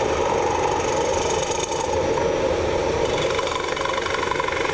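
Wood lathe running while a carbide-tipped Easy Finisher tool cuts the inside of a spinning wooden bowl: a steady machine hum under the scraping hiss of the cut.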